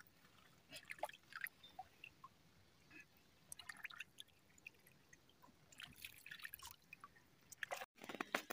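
Faint splashes and drips of water as small red new potatoes are rinsed by hand in a shallow pool, with a short run of louder clicks near the end.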